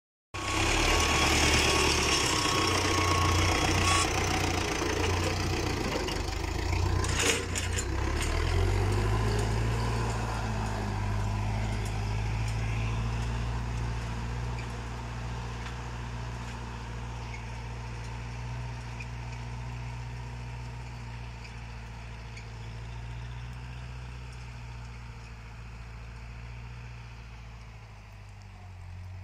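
Hanomag 324S tractor's D28 diesel engine running steadily while it pulls a disc harrow through ploughed ground. The engine note fades slowly as the tractor moves away.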